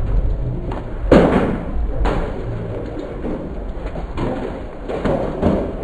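Heavy thunderstorm: steady rain noise under a low rumble, broken by a series of thuds about a second apart, the loudest about a second in.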